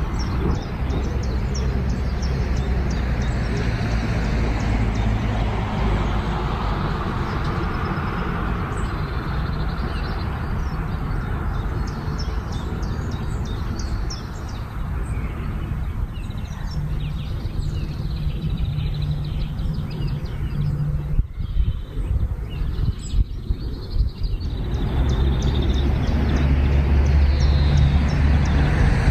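Outdoor ambience: a steady low rumble with small birds chirping throughout.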